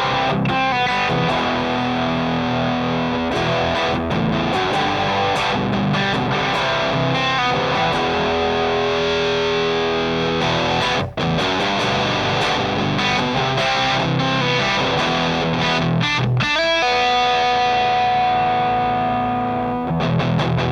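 Electric guitar played through a Rullywow Plexicruise, a Marshall-voiced JFET distortion pedal cloned from the Plexidrive: distorted chords and riffs, with a brief break about eleven seconds in and a long held chord near the end.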